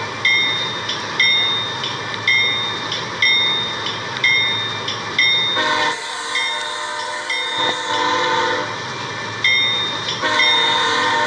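Train horn sounding a steady chord that stops about six seconds in and starts again about ten seconds in, with a ringing strike repeating about once a second.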